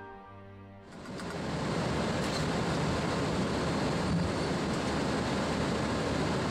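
Steady rushing rumble of a Boeing 767-300ER heard from its cockpit as the airliner rolls along the runway, rising in about a second as background music fades out, then holding even.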